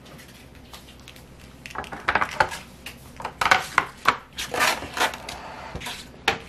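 Plastic trays and lid of a food dehydrator being stacked and fitted: a quick run of light clacks and knocks, with some rubbing, starting about two seconds in.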